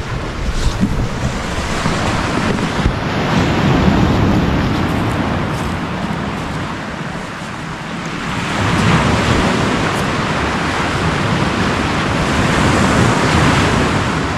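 Wind buffeting the microphone over waves washing onto a pebble beach. The noise surges and eases every few seconds.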